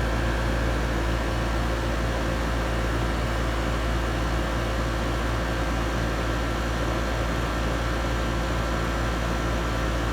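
Trane air-conditioning outdoor unit running steadily: compressor hum with condenser fan noise, a few steady tones over a low rumble.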